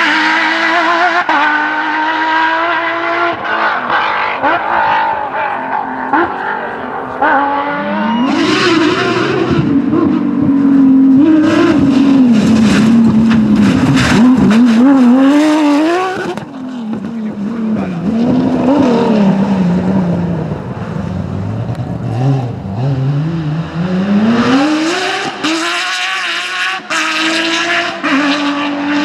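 Porsche 911 GT3 rally car's flat-six engine revving hard, its pitch climbing through gear changes and falling again as the car brakes and accelerates. The loudest stretch comes in the middle, with the engine note wavering, and a long rising run near the end.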